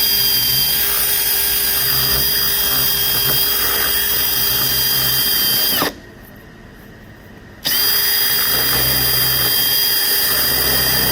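Power drill running steadily as it bores into wood around an embedded nail to free it. It stops for just under two seconds about six seconds in, then starts up again.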